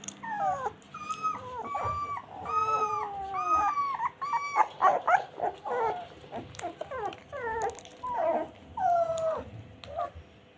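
American bulldog puppies whimpering and whining as they settle to sleep: a steady string of short, high cries, many sliding down in pitch, which thin out near the end.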